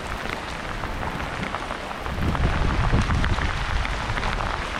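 Heavy rain pouring down in a sudden downpour, a dense hiss of drops with many sharp individual hits close by. About two seconds in, a low rumble swells up beneath the rain.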